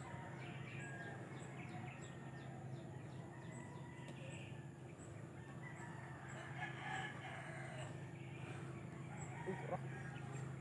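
Faint outdoor ambience with a rooster crowing in the background, alongside a regular series of faint high chirps about twice a second.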